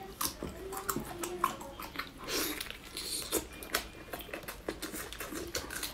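Close-up chewing of soft braised pork, with many short, wet mouth clicks and smacks.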